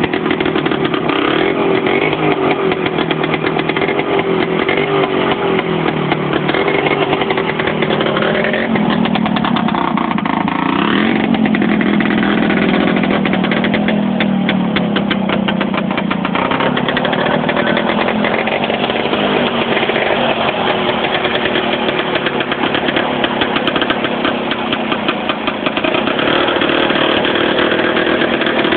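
Small tractor's engine running steadily while it pushes snow with a front blade. The engine speeds up and drops back around the middle.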